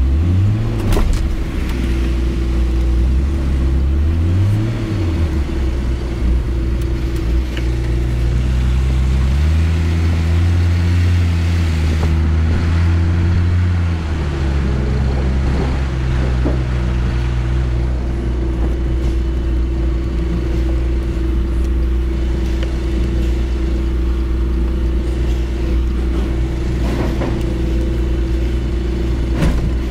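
HGV lorry's diesel engine running at low revs, rising briefly twice in the first five seconds and holding higher revs for a few seconds from about ten seconds in before settling back, over a steady hum.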